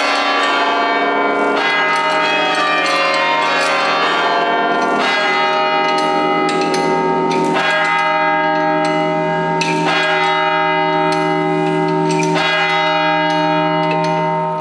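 Cathedral tower bells chimed by pulling ropes. Several bells are struck in turn, the strongest strikes coming about every two to three seconds, and their long ringing tones overlap and hang on between strikes.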